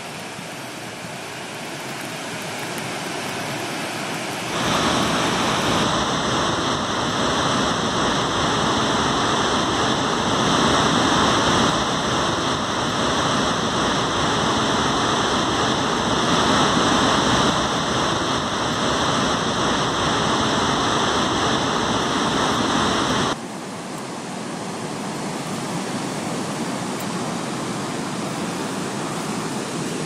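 Steady rushing of water from Gullfoss waterfall, the two-tiered falls on the Hvítá river. It jumps louder suddenly about four seconds in and drops back abruptly about seven seconds before the end.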